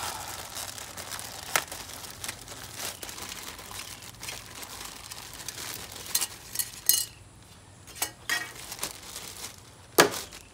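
Clear plastic parts bag crinkling and rustling as it is handled, with several sharp clicks and knocks of small parts. The rustling eases off after about six seconds, and the loudest click comes near the end.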